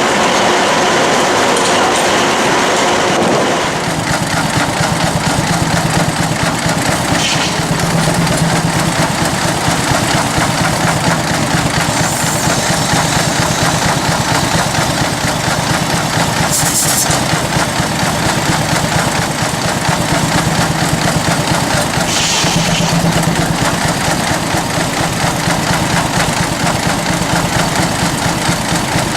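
Steam traction engine running a belt-driven sawmill: a steady mechanical hum with a fast, even beat, and brief hissing bursts every five seconds or so. The sound changes abruptly about three and a half seconds in.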